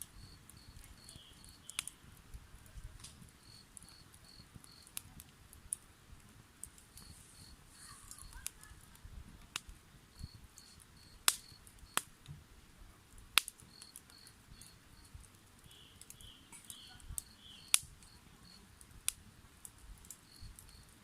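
Insects chirping in short, regular groups of high pulses. Sharp snaps and pops cut in now and then, the loudest a few in the second half.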